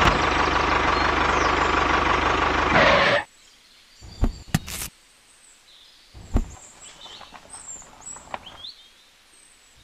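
Mini tractor running with a steady, even pulse, cutting off suddenly about three seconds in. A few sharp clicks follow as the trailer hitch is handled, with faint bird chirps near the end.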